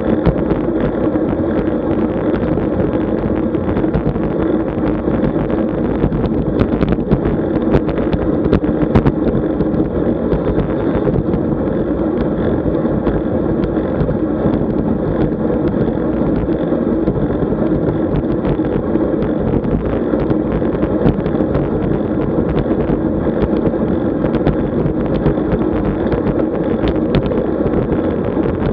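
Steady wind and road noise on the microphone of a camera moving with a road bike ride, with a constant low hum underneath.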